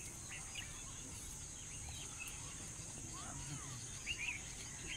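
Steady high-pitched insect chorus, likely crickets, from the pond-side vegetation, with scattered short bird chirps over it.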